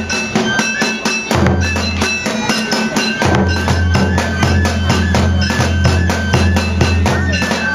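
Kagura music: a taiko drum beaten in a fast, even rhythm with metallic clanking percussion, under a high flute playing held notes with small slides. The deep low drum tone drops out twice in the first few seconds.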